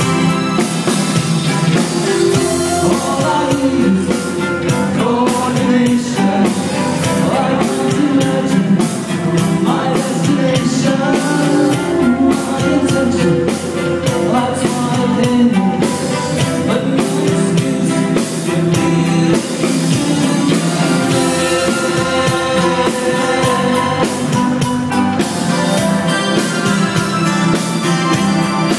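Live synth-pop band playing: a man singing lead over keyboards and drums, recorded from among the audience.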